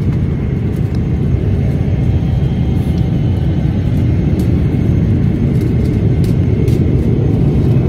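Steady, low cabin roar of a jet airliner in flight, heard from inside the cabin: engine and airflow noise.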